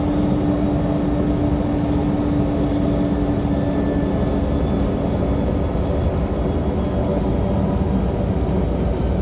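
Transperth city bus running with a loud low rumble and a steady hum that fades out about five seconds in, with light rattles and clicks through the second half.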